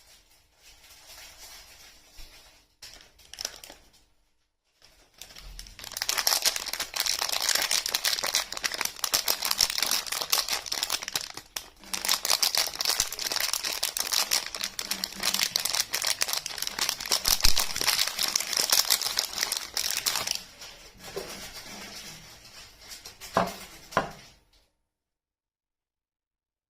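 Soap packaging being unwrapped by hand: faint rustling at first, then a long stretch of loud, dense crinkling and tearing of the wrapper, easing to quieter handling with a couple of sharp clicks before it stops.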